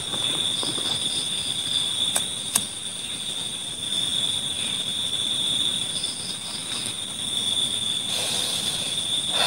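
Steady high-pitched drone of night insects, two unbroken tones, with two sharp clicks a little past two seconds in from a lighter being struck to light a hand-rolled cigarette.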